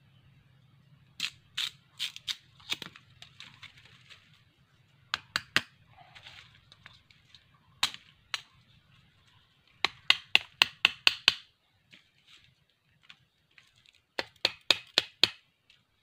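Bamboo stakes being struck while a trap fence is set in the ground: sharp, crisp knocks in short runs, the quickest at about six a second.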